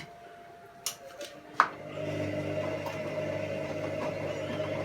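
A sharp click about a second and a half in, then a washing machine starts filling: a steady hum with water running in as it takes on water again, the machine opened up to trace a leak.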